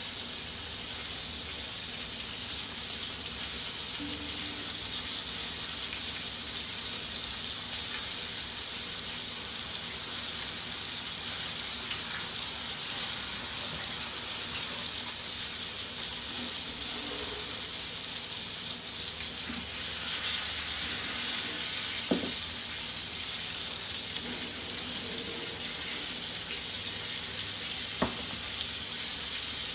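Lemon sole fillets sizzling steadily in frying pans over low heat, a little louder for a couple of seconds about two-thirds of the way through. Two sharp knocks near the end as a pan is handled.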